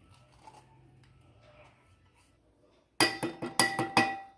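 Metal kitchenware clinking: a quick run of about six sharp, ringing metal clinks, like a utensil knocking against a metal cooking vessel, starting about three seconds in after faint room noise.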